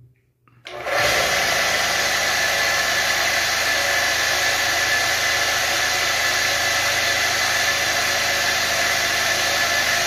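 Homemade air compressor, an electric motor belt-driving a refrigerator compressor head, starts up about a second in and runs steadily with a high whine, pumping air into a balloon.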